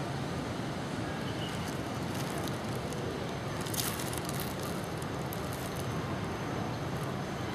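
Steady rushing background noise, with a few faint clicks and a brief crackle near the middle.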